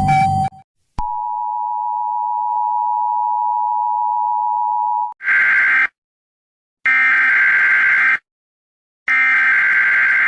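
Emergency Alert System-style alarm audio. A steady electronic alert tone sounds for about four seconds. It is followed by three bursts of buzzy two-pitch data tones about a second apart, like the SAME header bursts of an EAS message. Just before the tone, a preceding sound cuts off abruptly, followed by a click.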